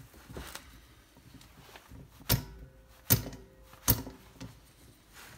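Three sharp knocks about a second apart from hand tools on the carburettor's top-cover screws, with a short metallic ring after the later two, amid quieter handling of the carb body.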